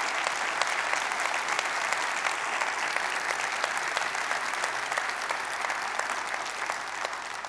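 Large seated audience applauding steadily, the clapping tapering off near the end.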